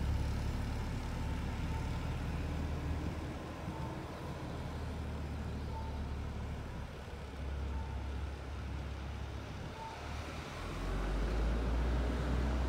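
Isuzu Erga CNG city bus pulling away and driving off, its engine a low rumble that grows louder near the end. A faint short beep sounds about every two seconds throughout.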